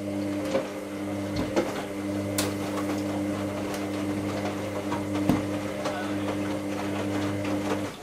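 Hoover Classica 1000 front-loading washing machine giving a steady, even-pitched electrical hum that cuts off abruptly near the end, with a few sharp knocks along the way.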